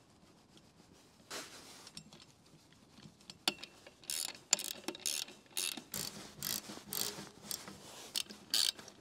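Ratcheting wrench tightening the nuts on a microwave antenna mount's adjustment bolts: a run of quick clicking strokes, about two to three a second, starting about four seconds in, after a faint scrape and a single click.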